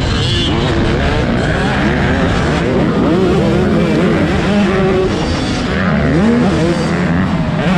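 Several motocross dirt bike engines revving on the track, their overlapping pitches rising and falling as the riders open and close the throttle.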